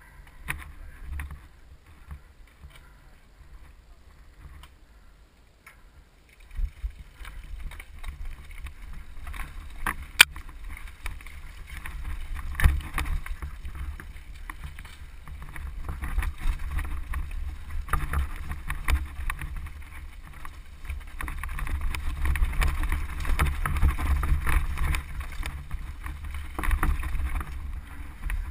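Mountain bike descending a rocky dirt singletrack: wind buffeting the microphone, with tyres on loose stones and the bike rattling. It is quieter at first and picks up once the ride gets going, about six seconds in, with a sharp knock about ten seconds in.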